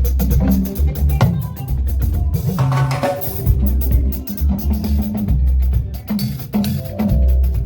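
Band music led by a drum kit, kick and snare hits over low bass notes, with a cymbal-like wash about three seconds in.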